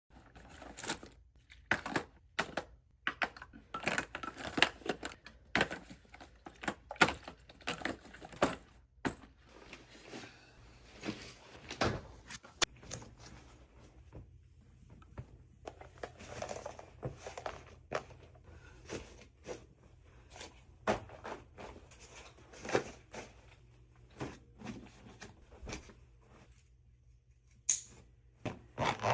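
Packaging being handled at close range: irregular crinkling and tearing, with many sharp clicks and knocks.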